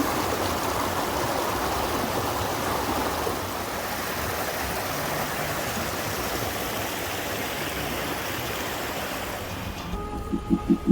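Steady rush of flowing water, like a stream or small waterfall. It cuts off abruptly near the end and gives way to a low rhythmic pulsing of about five beats a second.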